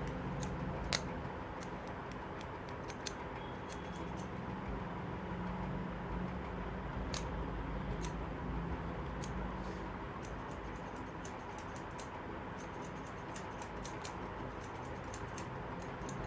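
Barber's scissors snipping hair in irregular runs of sharp clicks, coming thicker in the second half, over a steady background hum.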